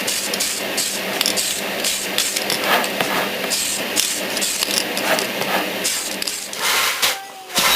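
Wet 1500-grit sandpaper rubbing over a plastic model car body in quick repeated strokes, sanding out lint trapped in the paint.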